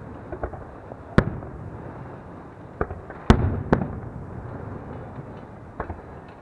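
Aerial firework shells bursting: a sharp boom about a second in, the two loudest booms in quick succession about three seconds in, and smaller pops between, each boom trailing off in a short echo.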